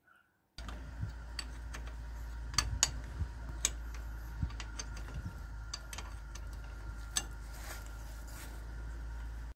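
Irregular clicks and light metallic taps from hands working the wiring at an old tractor's starter motor, over a steady low hum that starts suddenly about half a second in.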